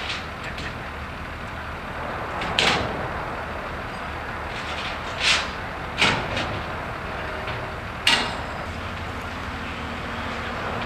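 A steel freight car body being broken up: about four sharp bangs a couple of seconds apart as workers work on it with tools, over the steady rumble of an engine running.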